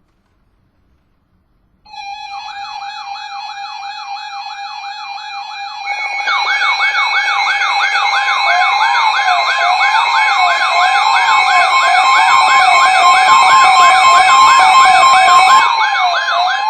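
Electronic siren alert tones. About two seconds in, a fast wail starts, rising and falling about three times a second over steady high tones. About six seconds in it grows louder as a second layer of wailing, a slower rising-and-falling tone and a steady alarm tone join it.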